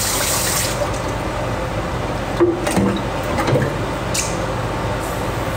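Kitchen tap running, then shut off abruptly about a second in, followed by a few light clicks and knocks of kitchen handling.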